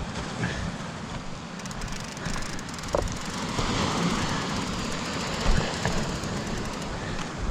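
Wind buffeting the microphone in uneven low rumbles over a steady wash of sea surf, with one short click about three seconds in.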